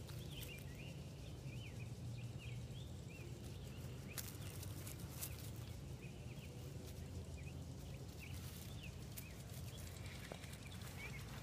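Faint outdoor ambience: small birds chirping repeatedly over a low steady hum, with a few sharp clicks.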